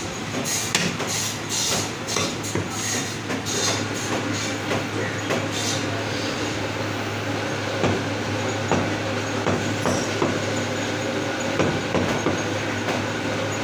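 Butcher's cleaver chopping mutton on a wooden chopping block: repeated knocks at an uneven pace, sharper and louder in the second half, over a steady low hum.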